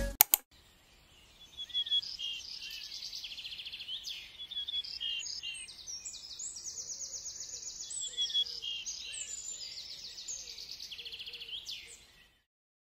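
Several birds chirping and singing, with rapid high trills and short repeated chirps, and a few fainter lower calls. The birdsong starts about a second and a half in and stops shortly before the end.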